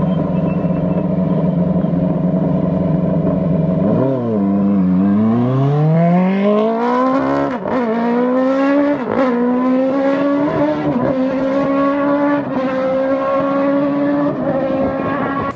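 Race car's 1600cc Suzuki Hayabusa inline-four engine held at steady high revs, then launching and accelerating hard. Its pitch climbs and drops back at each of several quick upshifts.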